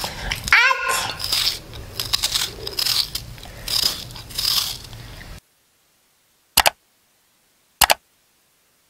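Knife cutting through a raw onion held in the hand, a run of crisp crunching slices, with a brief squeak sliding down in pitch about half a second in; the sound cuts off suddenly about five seconds in. Then two short sharp clicks about a second apart, from the on-screen subscribe-button animation.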